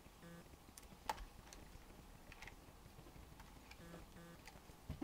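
Faint, scattered small clicks and ticks of a small screwdriver and tiny screws being worked against a laptop battery and its aluminium case, the sharpest click about a second in; otherwise near silence.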